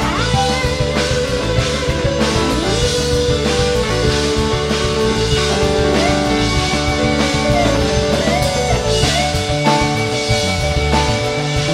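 Jam-band rock music: a guitar lead playing over a drum kit.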